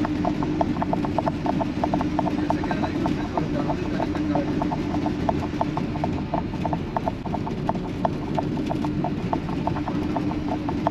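Inside the cab of a moving truck: steady low road and engine rumble with a constant hum, and a light regular ticking about four times a second.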